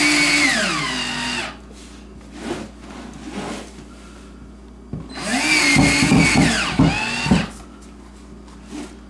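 Cordless drill driving screws through a plastic door-bottom seal into a steel door, in two runs. The first lasts about a second and a half, its motor whine dropping in pitch as the screw takes load. The second starts about five seconds in, drops in pitch the same way and ends with the trigger stuttering on and off as the screw is snugged down without crushing the plastic.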